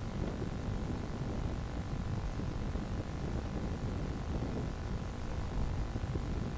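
Classic touring cars' engines idling together on the starting grid, a steady low rumble with faint engine tones above it.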